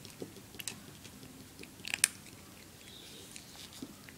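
A kitten crunching pieces of dry cat kibble: scattered short crunches, the loudest about two seconds in.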